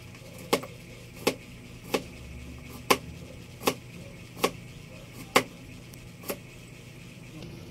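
Kitchen knife slicing a cucumber into thin rounds on a cutting board: about eight sharp knocks of the blade meeting the board, one roughly every second, the last a little over six seconds in.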